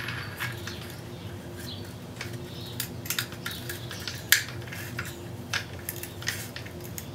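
Light metallic clinks and taps as a 125 mm disc is fitted onto a Hitachi G12SS angle grinder's spindle and checked against the guard, scattered irregularly with one sharper clink about four seconds in, over a faint steady hum.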